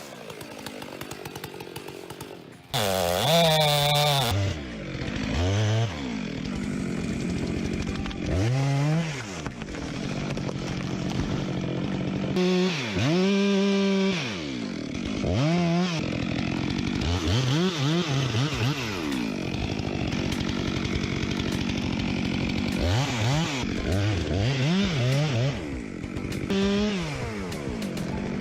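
Chainsaw cutting into a tree, its engine revving up and falling back again and again as it bites into the wood.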